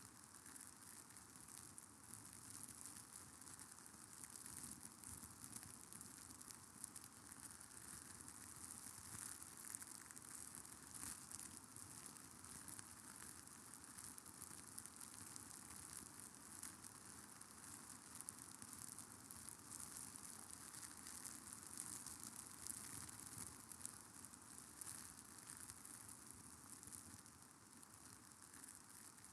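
Faint, steady crackling hiss made of many fine ticks, like sizzling or light rain, with no pitch or rhythm.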